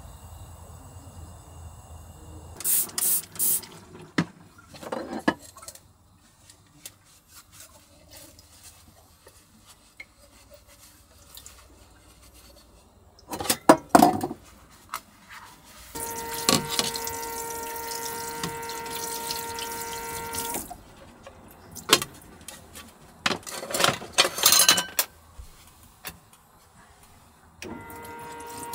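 Water running from a tap for about four and a half seconds with a steady hum under it, starting again near the end. Between the runs come scattered short clinks and knocks of things being handled.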